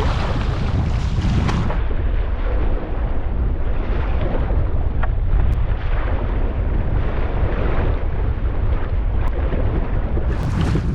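Strong wind buffeting the camera's microphone as a loud, steady rumble, mixed with the wash and splash of choppy sea waves around the kayak. The sound turns muffled about two seconds in and clears again near the end.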